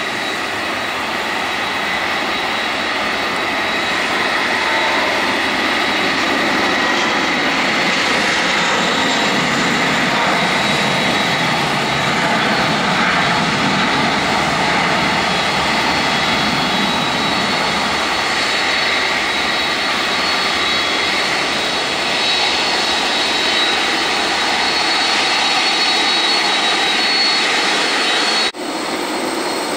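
McDonnell Douglas MD-11 trijet freighter's jet engines running steadily at taxi thrust: a continuous rushing noise with a faint high whine. The sound drops out for an instant near the end.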